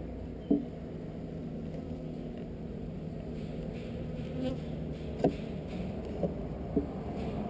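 Honeybees buzzing steadily around an opened nucleus colony, with four short knocks, the loudest about half a second in and another just past the middle.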